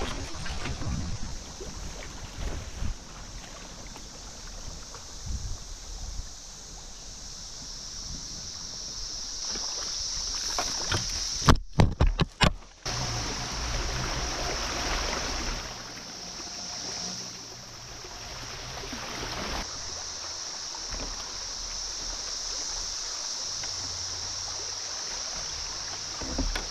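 Fast, high river current rushing past a kayak: a steady hiss of moving water over a low rumble. The sound cuts out abruptly a few times about halfway through.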